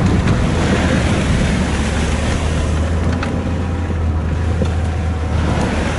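Inside a vehicle's cabin: the engine drones steadily as the tyres churn through muddy water on a flooded dirt track, with a constant wash of water and rain noise.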